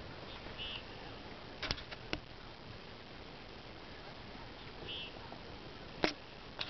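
Open-water ambience from a kayak: a steady soft hiss of wind and rippling water, broken by a few sharp clicks and knocks, twice in a close pair. Two brief high chirps come about half a second in and again near five seconds.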